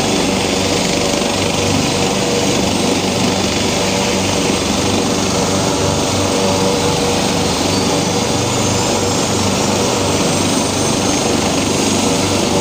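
AgustaWestland AW139 twin-turbine helicopter running on the ground with its rotors turning, giving a loud, steady turbine whine over the throb of the rotor blades.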